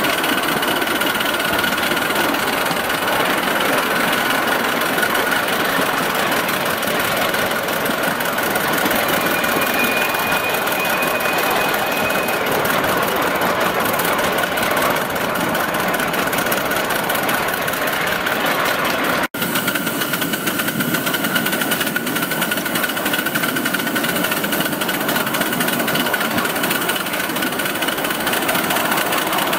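5-inch gauge live steam locomotive, a 0-6-2 Metre Maid version of the Sweet Pea, running along the track, heard from on board: fast, steady chuffing from the exhaust mixed with running noise from the wheels on the rails.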